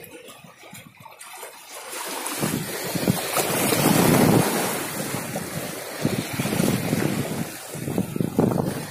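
Choppy sea water washing against breakwater rocks, with wind buffeting the microphone; the rush swells about two seconds in and is loudest around four seconds, then goes on in uneven gusts.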